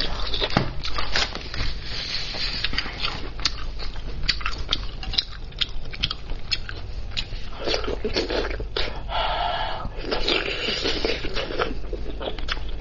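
Close-miked eating of spicy braised lamb's head meat: wet chewing, biting and smacking mouth sounds with many sharp clicks, and a denser, fuller stretch about eight seconds in that lasts a few seconds.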